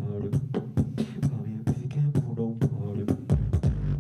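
Human beatboxing by a single performer into a microphone. Sharp snare and hi-hat clicks several times a second sit over a held bass tone and a wavering hummed line, all made at once. A very deep bass swell comes in near the end.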